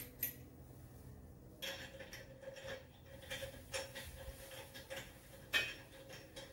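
Irregular light metallic clicks and clinks as lug nuts are threaded by hand onto the wheel studs of a new aftermarket wheel hung on the front hub. The sharpest click comes about a second before the end.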